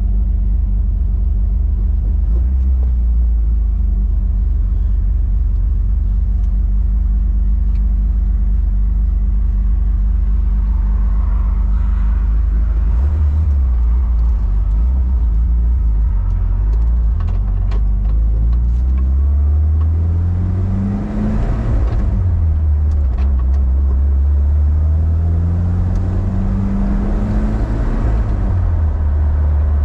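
Turbocharged 22R-E four-cylinder of a 1993 Toyota pickup heard from inside the cab, running on new injectors at 8 psi of boost. It runs steadily at first, then pulls hard twice: the pitch climbs, drops at a shift about two-thirds of the way through, climbs again, and falls back near the end.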